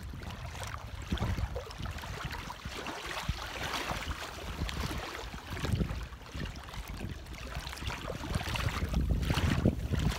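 Wind buffeting the microphone, a gusting low rumble, over choppy lake water lapping at the shore.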